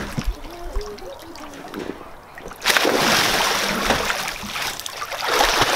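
A child plunges into an inflatable paddling pool filled with water and Orbeez gel beads. There is a sudden big splash a little under halfway through, followed by continued splashing and sloshing water.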